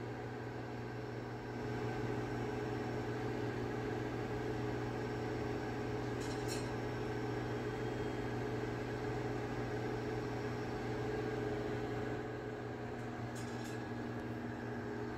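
Steady low mechanical hum from a running machine, a little louder from about a second and a half in until near the end, with a couple of faint clicks.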